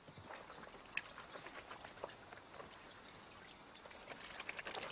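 Laundry being washed by hand in a plastic basin of water: faint splashing and sloshing as cloth is scrubbed and squeezed, with the small splashes coming thicker near the end.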